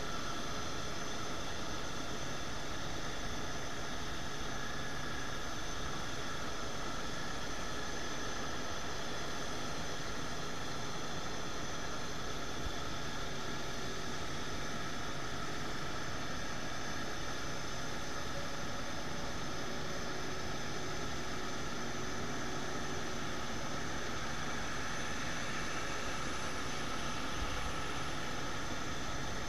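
Steady jet whine from an Airbus A350-900 over the rumble of the pushback tug pushing it back, several high steady tones above an even noise, unchanging throughout.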